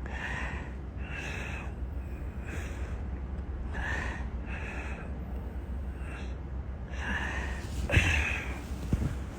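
A man with a cold breathing heavily, a short noisy breath about every second, over a steady low hum. A sharp bump near the end.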